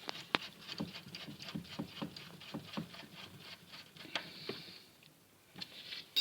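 Faint, irregular small clicks and taps of a nut and metal parts being handled while they are refitted on a washing machine's spin dryer, a few per second, stopping about five seconds in.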